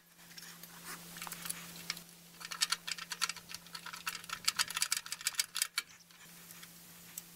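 Nuts being spun finger-tight onto the bolts of a steel mounting bracket: irregular runs of light metallic clicks and scratches, busiest in the middle few seconds.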